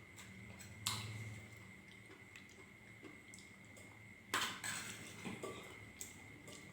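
Cutlery clinking against dishes while eating: a few scattered clicks, the loudest about four seconds in, over a faint steady high-pitched hum.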